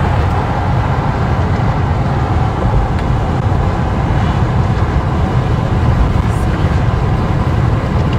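Steady road noise inside a moving car on the highway: a low rumble of tyres and engine.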